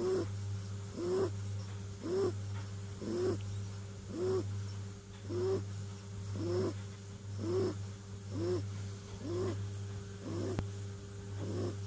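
Kitten snoring in its sleep: a short, squeaky snore about once a second, each rising and then falling in pitch, over a steady low hum.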